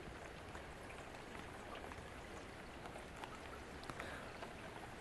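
Faint, steady rain hiss with scattered small ticks.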